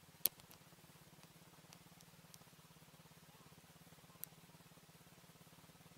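ATV engine idling faintly and steadily, with a few sharp clicks on top, the loudest about a third of a second in and another about four seconds in.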